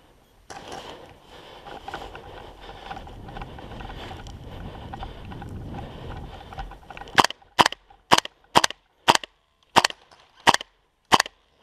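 Several seconds of rustling movement noise, then a gas blowback airsoft rifle firing eight sharp single shots about two a second.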